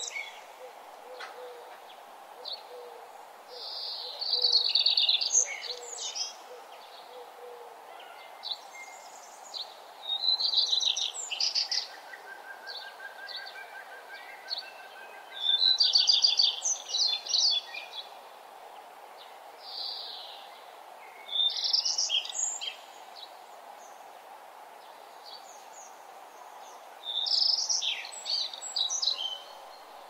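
A songbird singing short, fast, high-pitched song phrases of about two seconds each, repeated five times at intervals of five to six seconds, over a steady faint background hum.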